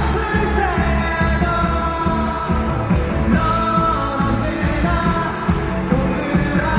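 Live rock band performance with a male lead vocal singing long held and gliding notes over steady drums and bass, heard through the concert hall's sound system.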